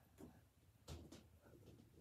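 Near silence: room tone with a few faint soft taps, one just after the start and two close together about a second in.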